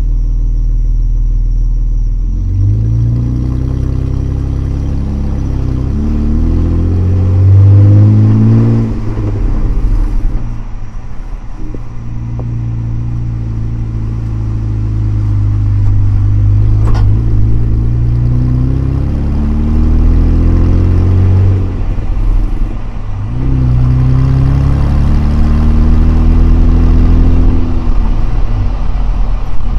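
Jeep Wrangler JKU's 3.6-litre Pentastar V6 running through an aFe 3-inch catback exhaust. The exhaust note climbs in pitch and drops back several times, holds steady through the middle, and climbs again near the end.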